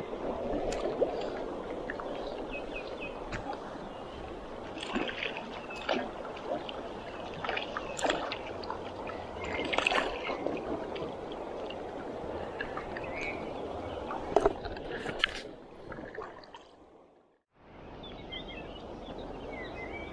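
Shallow river water running over a stony riffle, a steady rushing with occasional small splashes and clicks. The sound fades out briefly near the end and comes back a moment later.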